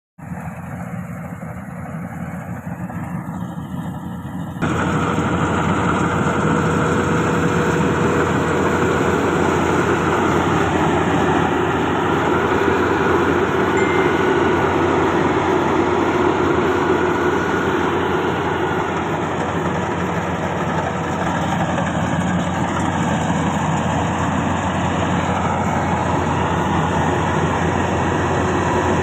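Engine of a rice harvesting machine running steadily. It gets suddenly louder about four and a half seconds in, then holds.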